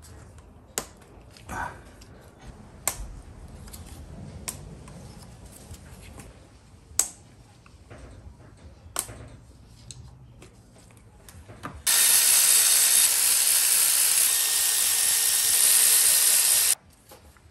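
Scattered plastic clicks and knocks as the ignition coil connectors are unplugged by hand. About twelve seconds in, a Milwaukee 3/8-inch cordless ratchet runs steadily for about five seconds, undoing an ignition coil's 10 mm bolts, then stops abruptly.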